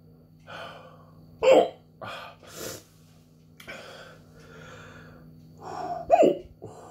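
A man hiccuping twice, with a sharp, loud hic about a second and a half in and another near the end, and breathing between them. The hiccups were brought on by chugging a bottle of very hot chilli sauce.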